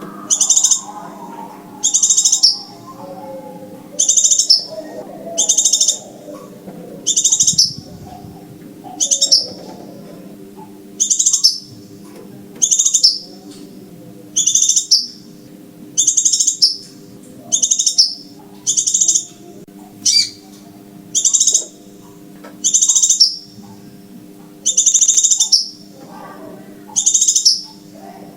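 Crimson sunbird (sepah raja) call, played as a trapping lure: a short, very high, buzzy trill of about half a second, repeated about once a second, with a faint steady low hum underneath.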